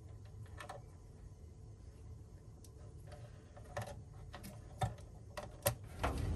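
Scattered small clicks and taps of crimped spade connectors and wire leads being handled and pushed onto a circuit board's terminals, spaced irregularly, over a faint low hum.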